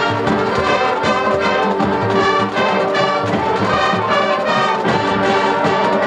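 Marching band playing loudly, its brass section sounding full sustained chords over a steady pulse of drum and percussion strokes.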